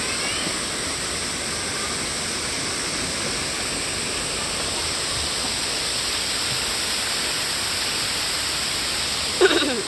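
Running water of a mountain stream, a steady rush without letup. Near the end a voice gives one brief call that falls in pitch.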